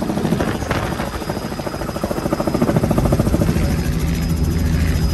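Helicopter rotor chop heard from on board the aircraft: a fast, steady beat of the blades over the engine noise, growing louder about three seconds in.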